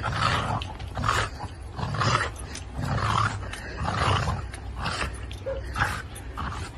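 Dog playing with a plastic snow shovel in the snow: rough, noisy sounds about once a second, from the dog's growling and huffing and the shovel scraping over the snow.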